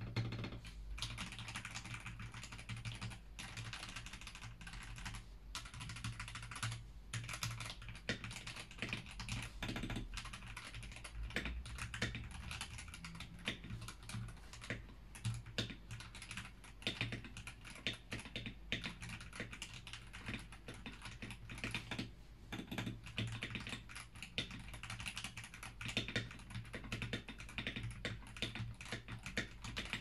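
Fast, continuous typing on a stock CMK68 mechanical keyboard with Gateron Silver Pro linear switches: a dense, irregular clatter of keystrokes.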